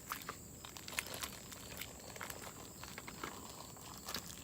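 Homemade slime being squished and stretched by hand, giving faint, irregular sticky clicks and small pops.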